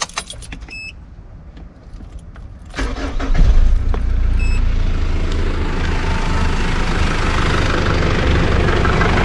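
Clicks and a short electronic dash chime, then about three seconds in the Mitsubishi Pajero's engine cranks, catches and settles into a steady idle. This is the first start after an oil change, checking that the engine runs.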